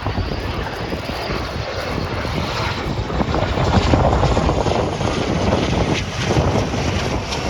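Aircraft engine noise from an aircraft flying past, swelling to its loudest about four seconds in and then easing off.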